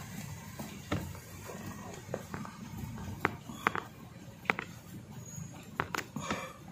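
Screwdriver turning out a screw from the plastic blower motor housing of a car's cabin fan: a handful of small, sharp ticks and clicks spread a second or so apart.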